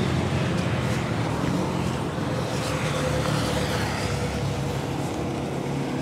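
A column of motorcycles riding past on the road, their engines running with a steady, even sound.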